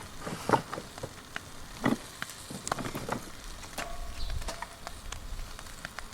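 Wood fire crackling with irregular pops over a low hiss; the sharpest pops come about half a second and two seconds in.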